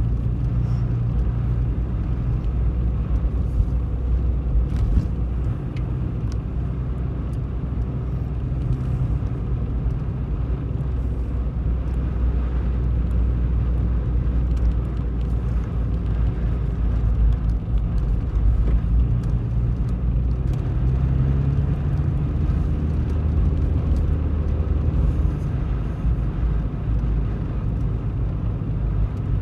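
Car engine and tyre noise heard from inside the cabin while driving, a steady low hum whose engine note shifts a few times along the way.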